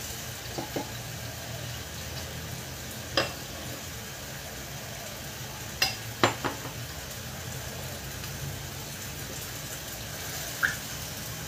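Chicken thigh and leg pieces sizzling steadily as they fry lightly in a clay pot, a brief searing before the curry is built. Several short sharp knocks, from the wooden spatula and dishes against the pot, break in at scattered moments.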